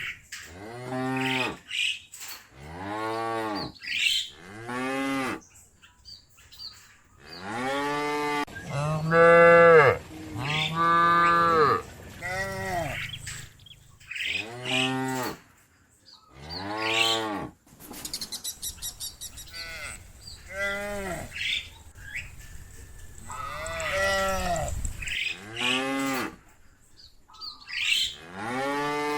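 Cattle mooing, one call after another, each moo rising and then falling in pitch.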